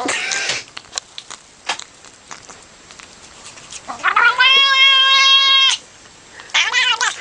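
Cat meowing: a brief call at the start, then a long, drawn-out, steady meow of nearly two seconds about four seconds in that cuts off suddenly, and another wavering call near the end.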